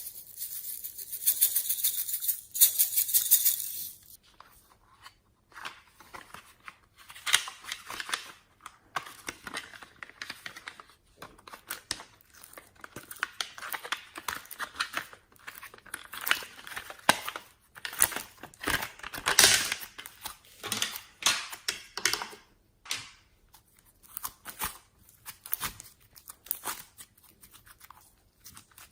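Slime being squished, stretched and pressed by hand: irregular crackling and sticky snapping sounds in bursts with short pauses, the densest crackle in the first few seconds.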